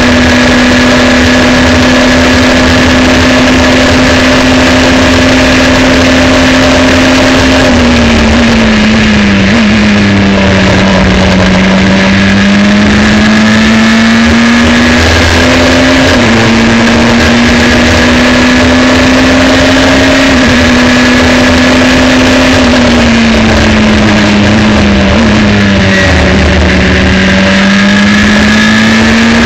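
Formula 3 car's two-litre four-cylinder racing engine, heard from on board with heavy wind and road noise. The engine note holds steady at high revs, then sags as the car slows and shifts down, and climbs again as it accelerates. The same dip and climb comes a second time later on.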